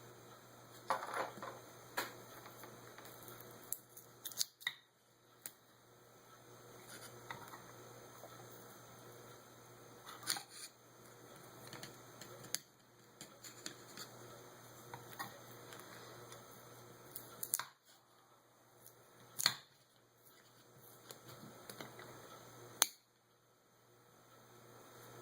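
Scattered sharp clicks and taps of small metal carburetor parts being handled while a gasket is worked loose, over a faint steady hum.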